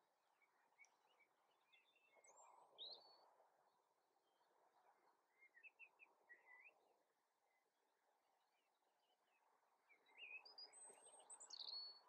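Faint birdsong: scattered chirps and short whistled phrases from several small birds, coming in three clusters, over a faint steady background hiss.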